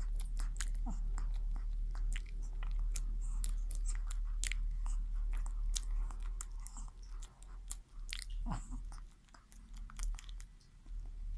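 Chihuahua chewing mouthfuls of soft banana, a run of quick wet mouth clicks from chewing and lip-smacking. The clicks thin out and grow quieter after about seven seconds.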